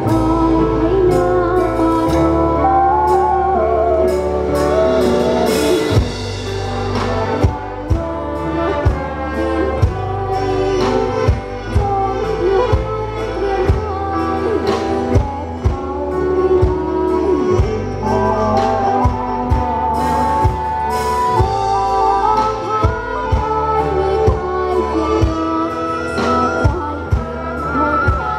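A Thai luk thung band playing live through a PA system: a melody over a steady bass, with frequent drum hits.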